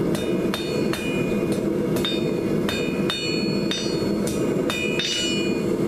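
Hand hammer striking hot square steel stock on an anvil, about two to three blows a second, each with a short metallic ring, bending the finial back in on itself. A steady low hum runs underneath.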